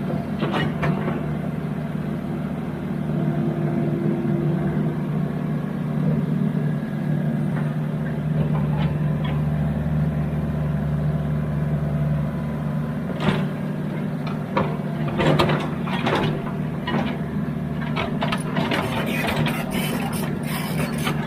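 Excavator's diesel engine running steadily, with scattered clanks and knocks that come thicker near the end.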